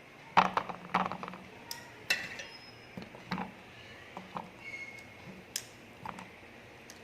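Kitchen clatter: utensils and dishes being handled, a series of irregular sharp knocks and clinks.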